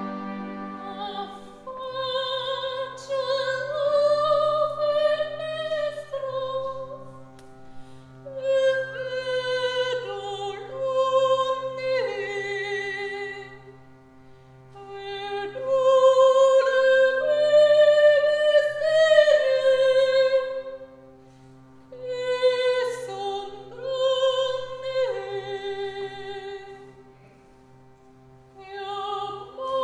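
Soprano singing in several phrases with wide vibrato and short breaks between them, over steady low notes held beneath her by the accompaniment from about two seconds in.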